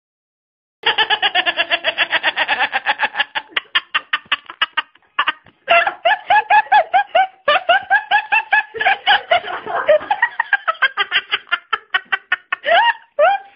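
Hard, high-pitched laughter in rapid runs of short bursts, starting about a second in.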